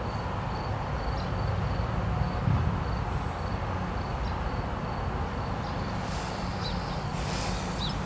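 Outdoor background: a steady low wind rumble on the microphone, a faint high pulsing trill, and a few short high chirps near the end, with a brief rustle of clothing or camera handling late on.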